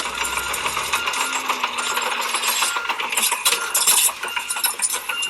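Toy Bruder Caterpillar D6 bulldozer's plastic tracks clattering and rattling in a dense run of clicks as it is moved off the low-loader trailer.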